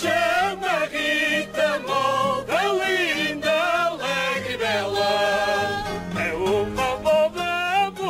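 Background music: a song with a wavering, gliding melody line, likely a singing voice, over a steady accompaniment.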